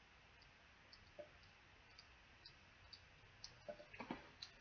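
Faint, light clicks about twice a second, a few more near the end: a tiny screwdriver working a small screw out of the plastic housing of a Calista Tools Perfecter electric brush.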